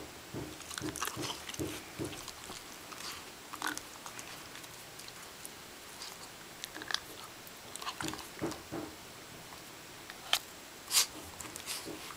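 West Highland white terrier's short, low noises and movement, with scattered brief clicks and rustles; two sharp clicks about ten and eleven seconds in are the loudest.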